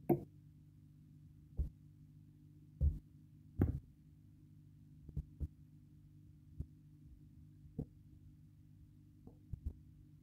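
Irregular soft knocks and taps as hands and a pen are set down and moved on a spiral notebook on a desk, the loudest in the first four seconds, over a steady low hum.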